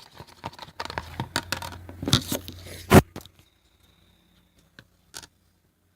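A utensil stirring glue slime mixture in a cup: a quick run of scraping and clicking, with one sharp knock about three seconds in, then only a few faint ticks.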